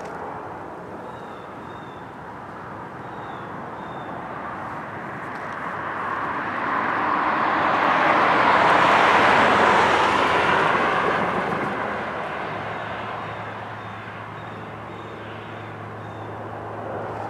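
A passing vehicle, its noise swelling to a peak about nine seconds in and then fading away.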